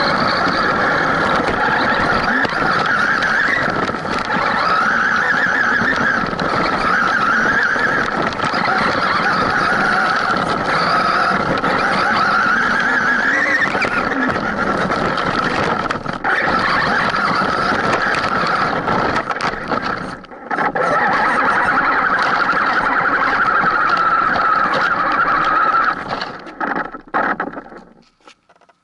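Traxxas Rustler VXL RC truck's brushless motor and drivetrain whining, the pitch rising and falling with the throttle, heard from a camera riding on the truck. The sound cuts out briefly twice and dies away near the end.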